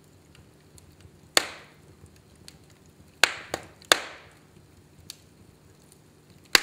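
Wood fire crackling: five sharp pops from the burning logs, three of them in quick succession in the middle, over faint small ticks.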